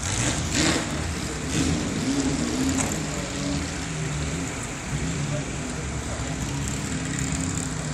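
Ferrari F40's twin-turbo V8 idling steadily, with a couple of short rushes of noise in the first two seconds.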